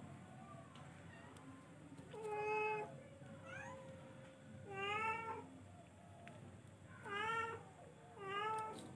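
A cat meowing four times, each meow about half a second long, spaced a second or two apart, with a fainter short call between the first two.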